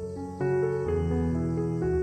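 Background instrumental music: sustained notes that change every half second or so.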